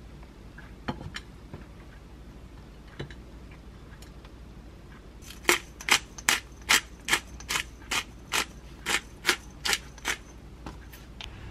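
A small plastic pepper dispenser being worked over a plate: a run of about a dozen sharp clicks, roughly three a second, starting about five seconds in. Before that, a few light knocks of food and hands on a ceramic plate.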